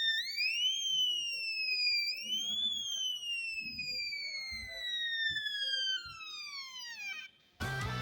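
Simple homemade electronic siren circuit sounding: one electronic tone that sweeps up, sweeps up again about two seconds in, then glides slowly down and falls away, cutting off about seven seconds in. Guitar music starts just before the end.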